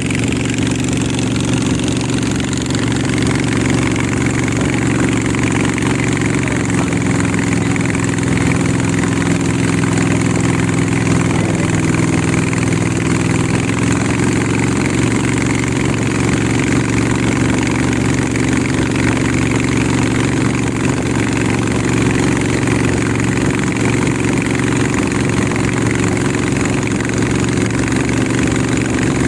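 River boat's engine running steadily under way, its low drone shifting slightly in pitch for a few seconds partway through.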